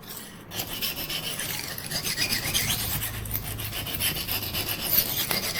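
Knife blade scraping in quick repeated strokes across the coarse side of an oil-soaked Norton 37C combination sharpening stone, starting about half a second in.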